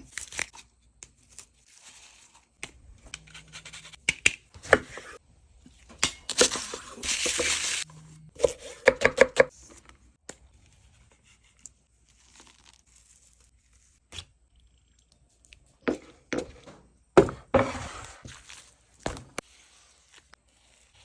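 Food-preparation handling sounds: irregular tearing and crinkling noises broken by sharp knocks, with a longer continuous tearing noise lasting a couple of seconds about six seconds in.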